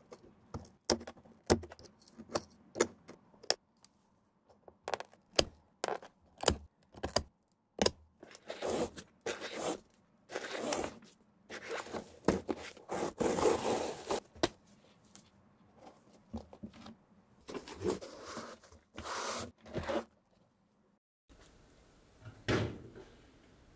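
Quick sharp clicks of a metal scraper chipping at the crumbling sole edge of an old Air Jordan 1, then longer rasping strokes as the shoelaces are handled and pulled. After a brief dead gap comes a single thump.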